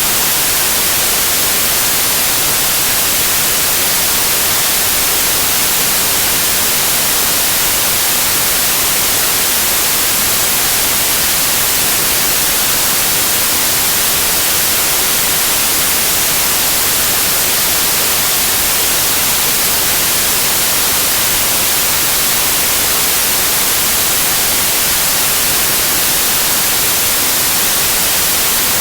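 Steady white noise of the TV-static kind: an even hiss, brightest in the treble, that never changes.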